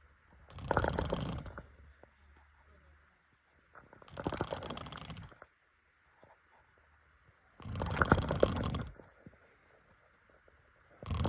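A person snoring in loud, rattling snores about every three and a half seconds, each lasting a second or more, with quiet breathing gaps between them.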